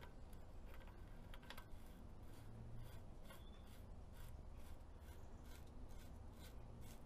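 Faint light ticking and scraping, about three times a second, as the big steering-stem nut of a Honda CBR1000F is spun down its thread by hand into the top yoke.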